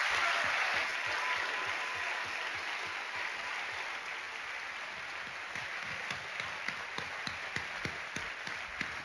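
Applause from a crowd, slowly fading. In the second half, single sharp claps stand out close to the microphone.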